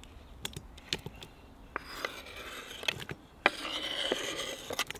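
Kitchen knife scraping sliced tomatoes off a wooden cutting board into an aluminium kazan: a scatter of light knocks, with stretches of scraping in the second half.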